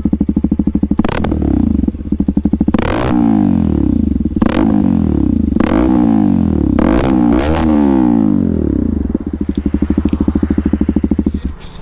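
KTM RC200's single-cylinder engine, warm, idling through a loud aftermarket SC Project-style full-system exhaust and blipped about six times in quick succession, each rev rising and falling back to idle. It then settles back into a steady, pulsing idle.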